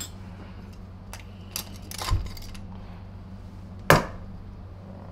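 A few sharp metal clinks and knocks as parts of a disassembled Royal 885 vacuum's motor housing are handled and set on a workbench, the loudest about four seconds in, over a steady low hum.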